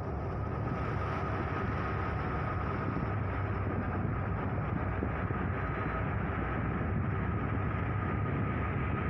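Boat engine running steadily: a low, even rumble with a faint steady whine above it.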